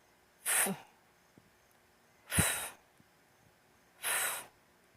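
A teacher's voice sounding the voiceless phonics sound /f/ three times: short breathy 'fff' hisses, each about half a second, spaced about two seconds apart.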